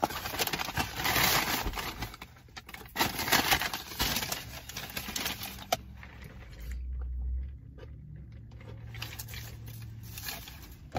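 Bursts of rustling and scraping as fast-food packaging is handled, loudest about a second in and again around three seconds, followed by quieter handling noises.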